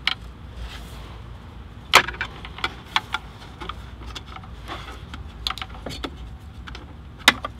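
Scattered sharp plastic clicks and taps as a plastic pry tool works the retaining clips inside a Dodge Ram's center-console armrest, freeing the USB/AUX board. The loudest click comes about two seconds in and another sharp one near the end, with a low steady hum underneath.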